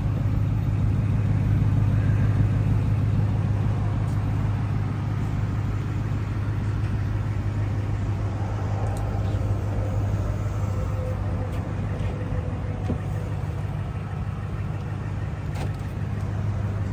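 A vehicle engine idling with a steady low hum, with a few faint clicks on top.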